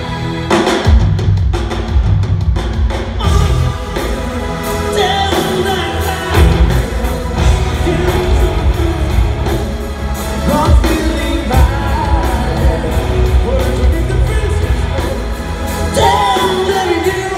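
Live metal band playing a Christmas song with singing, the drum kit hitting steadily under guitars and keyboards, heard from the stands of a large arena hall.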